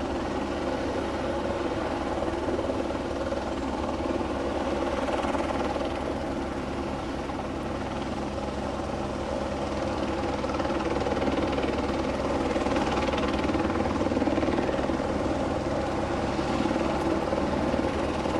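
Police helicopter's rotor and engine running, a fast steady beat of the blades over a constant engine hum, growing a little louder in the second half.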